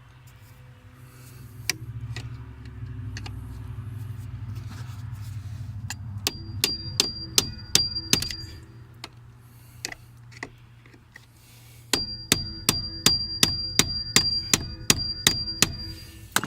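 A hammer striking metal in two quick runs of blows, about three or four a second, each blow with a short metallic ring. It is working loose the drilled-out remains of the tamper-proof bolt that holds a 2014 Subaru Impreza's ignition switch.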